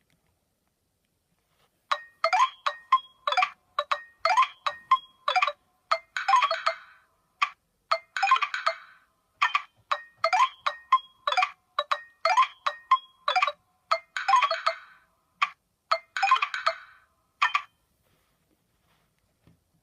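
A Nokia 515 ringtone playing on a Nokia 7100 Supernova phone: a fast melody of short notes that starts about two seconds in and stops about two seconds before the end.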